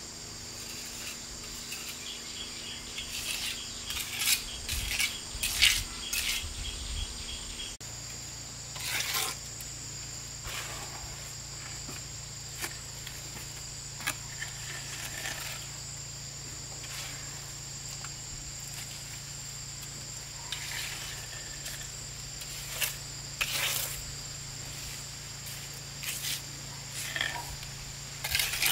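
Steady high-pitched insect chirring, with irregular short scrapes and clinks over it, several in quick succession around five seconds in.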